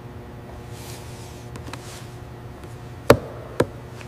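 Steady machinery hum in a factory hall, then two sharp knocks about half a second apart near the end, the first one the loudest and ringing briefly.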